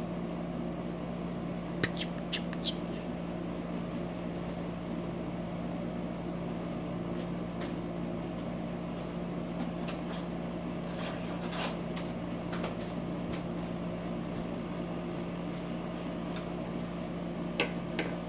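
Steady low hum with a few light, sharp clicks; near the end, clicks as hands handle a plastic fidget spinner.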